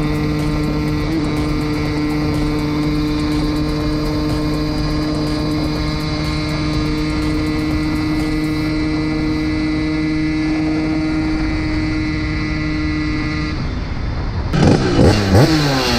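Simson moped's two-stroke single-cylinder engine, with an 85 cc BT Spezial cylinder and a Jackmotors expansion-chamber exhaust, running at steady high revs on one unchanging note. About 14 s in, the steady note breaks off and the pitch swings sharply up and down for the last couple of seconds.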